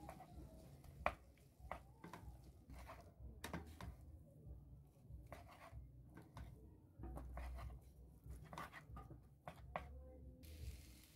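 Wooden spatula tossing spaghetti with sausage and peppers in a frying pan: irregular light scrapes and taps against the pan, the sharpest about a second in.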